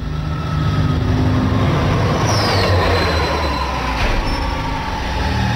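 Sound effect of a futuristic cartoon vehicle (a mecha) running: a steady low rumble under a high whine that slowly sinks in pitch, with a short falling whistle about two seconds in.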